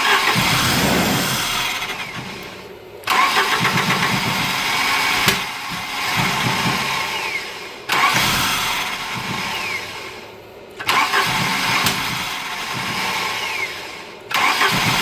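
A 1983 Volvo 244's engine cranking on the starter with the throttle closed, sputtering and spitting but not catching. The cranking comes in several spells, each starting abruptly. It is a no-start after a conversion to LH2.2 fuel injection and EZK ignition, with the ignition timing set at 12 degrees while cranking.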